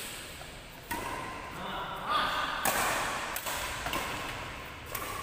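Badminton rackets striking a shuttlecock in a doubles rally: sharp smacks about one to two seconds apart, three of them, over the noise of the hall.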